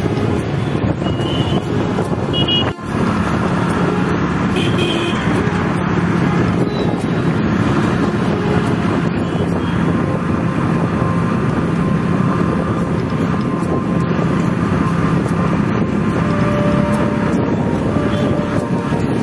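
Steady road noise heard from the rider's seat of a moving motorcycle in city traffic: engine, tyres and rushing air, with a low hum that settles in about three seconds in. Just before that the sound briefly drops out.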